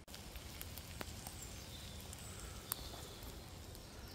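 Faint woodland ambience with distant birds chirping now and then, and two sharp clicks, the second the louder.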